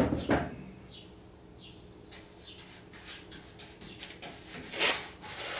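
Paintbrush scrubbing and dabbing thick rust-converter primer onto the steel bed frame: a short rasping stroke right at the start and another near the end, with quieter rubbing between. Faint, short, high chirps come a few times in the quiet stretch.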